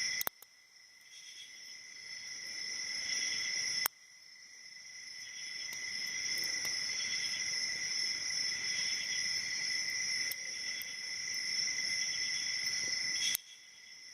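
A steady, high chorus of insects, like crickets, chirping in the background. It cuts out suddenly with a sharp click about four seconds in and again near the end, then builds back up.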